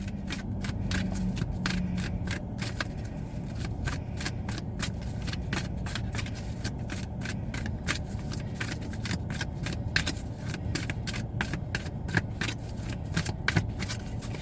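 A deck of tarot cards being shuffled: a long, uneven run of quick card clicks and slaps, several a second.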